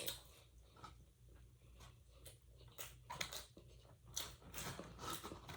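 Close-miked chewing of a burger: soft, irregular wet clicks and crunches of the mouth working a mouthful, busier in the second half.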